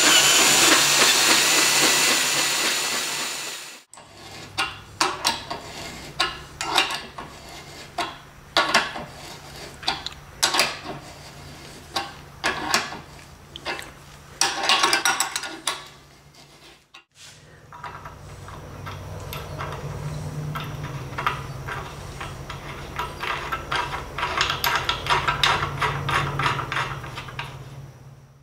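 Power drill running steadily as a 5/8-inch bit bores out a hole in a York AC compressor's cylinder head, stopping abruptly about four seconds in. Then irregular clicks and metal scraping as the hole is hand-tapped for a 3/8 pipe thread and a brass fitting is screwed in.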